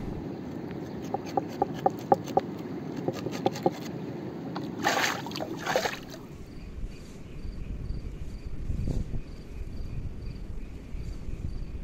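River water running, with a run of sharp clicks and then two loud rushing bursts about five seconds in. After that, an insect chirps steadily, about three short high notes a second, over quiet outdoor background.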